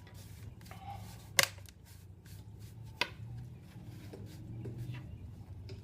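Plastic screen bezel of an Acer Chromebook 15 being pressed back on, its clips snapping into place: two sharp snaps, the first the loudest, with a few fainter clicks and handling rubs.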